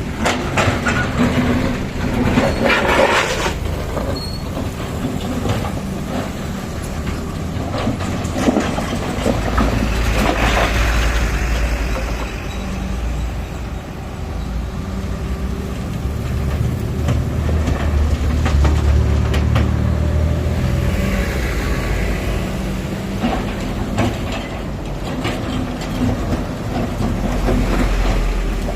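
Heavy earthmoving machinery's diesel engines running with a steady low rumble, broken several times by short bursts of hiss and clatter.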